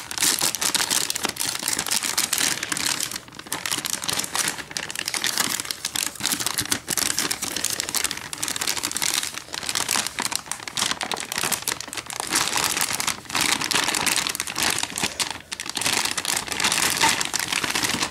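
Anti-static plastic bag crinkling and rustling as a graphics card is worked out of it, with a few short pauses.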